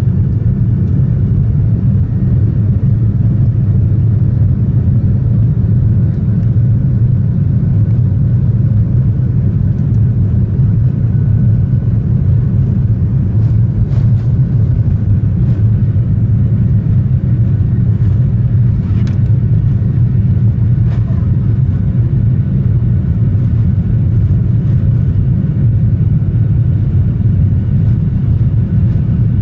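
Cabin noise of a Boeing 737-800 taxiing, heard from a window seat over the wing: a steady low rumble from the CFM56-7B engines at low thrust and the airframe rolling on the taxiway. A few faint clicks come about halfway through.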